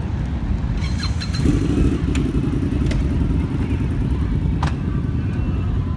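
Motorcycle engine running with a steady low rumble. A few sharp metallic clicks come through at intervals.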